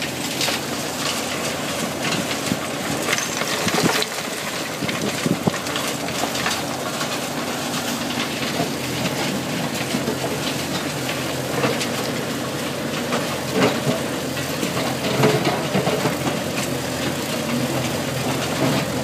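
Bobcat E35 mini excavator's diesel engine running steadily while its steel bucket digs through rocks and gravel in a water-filled pit, with scattered sharp clanks of stone against the bucket.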